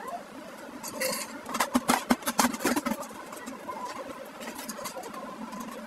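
A spoon scooping meat filling and tapping and scraping it onto a plate, a quick run of clicks and knocks in the first half that then dies down.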